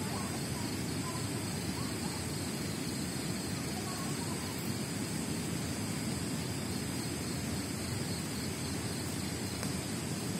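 Steady rush of flowing river water with a continuous high, thin drone of night insects such as crickets over it.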